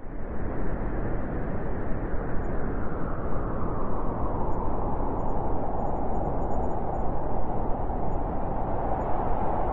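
Strong wind blowing steadily, a deep rushing noise that fades in at the start and builds, with a hollow band rising into a faint howl toward the end.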